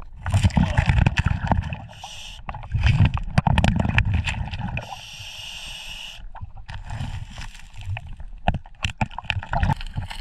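Underwater sound of a scuba diver at work on a riverbed: two breaths drawn through the regulator as a steady hiss, a short one about two seconds in and a longer one about five seconds in, between low gurgling rumbles of exhaled bubbles. Sharp clicks and knocks of stones and gravel being shifted by hand run throughout.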